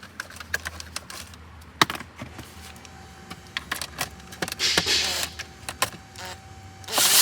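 Small cordless power driver run in two short bursts to back out dashboard trim screws, the second burst louder, with scattered clicks and taps of the tool against plastic trim.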